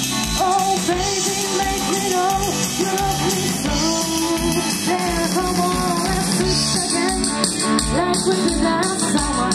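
Live rock band playing: a voice singing a melody over guitars and a drum beat.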